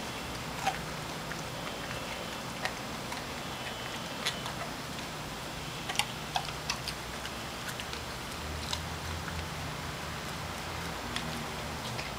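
A Rottweiler chewing a raw mackerel: irregular sharp clicks and crunches of teeth on the fish, a dozen or so spread out, the loudest near the start and about halfway.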